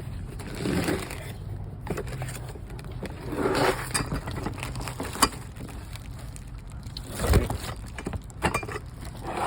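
A cardboard box being opened and its packaging handled: irregular rustling and scraping with a few sharp knocks and clicks.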